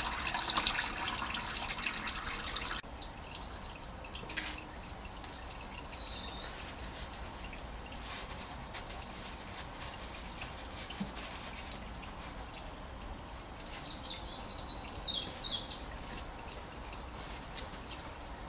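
Engine oil draining from a 2008 Honda Civic into a drain pan: a pouring stream that stops abruptly about three seconds in, then oil dripping. A few short high chirps sound about six seconds in and again near fifteen seconds.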